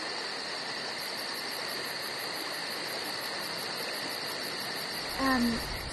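Steady hissing background noise with two constant high whines and a fast, faint pulsing at the very top; a voice begins about five seconds in.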